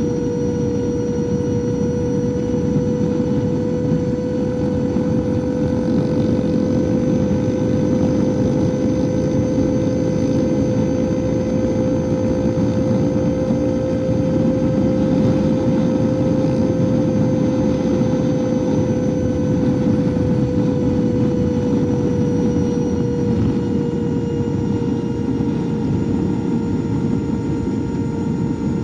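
Super Soco TC Max electric motorcycle's rear hub motor whining steadily over a dense rushing noise. The whine climbs slightly in pitch around the middle and eases back down near the end.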